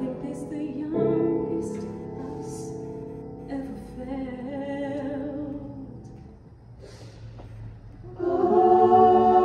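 A group of singers holding long sustained chords together. The sound thins out about six seconds in, then the full group comes back in much louder near the end.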